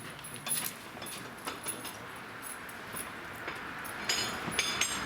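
A stallion being led on a hard yard: scattered hoof knocks, with a metallic jingle from its tack near the end.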